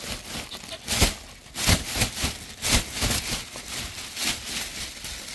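A thin plastic bag rustling and crinkling in a series of short bursts as it is shaken out over a heap of freshly dug wild chives.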